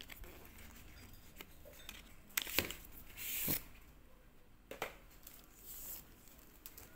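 Paperboard sleeve being slid off a clear plastic screwdriver-bit tube: two brief scraping swishes of card on plastic, with a few sharp clicks and taps as the tube is handled.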